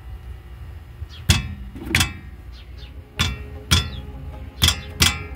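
A loose disc brake pad with play in its caliper, rocked by hand, clicking metallically about seven times at uneven intervals, each click ringing briefly. This is the annoying little noise that a loose pad makes, loud when driving on dirt roads.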